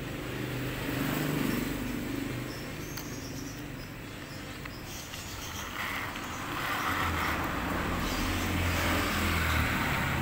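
Small plastic toy car pushed by hand across a tile floor, its wheels and gears giving a continuous rolling, whirring noise that grows louder about two-thirds of the way in.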